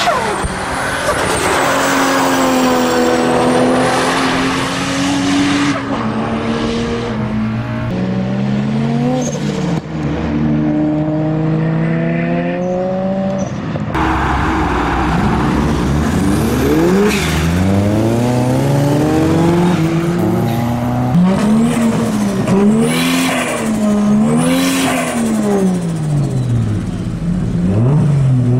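Modified turbocharged cars revving and accelerating in a run of short clips. First a Nissan Skyline R33 on a track, with a high turbo whistle above the engine. Then cars pulling away from a show, their engine notes rising and falling over and over, with whistles from the turbos.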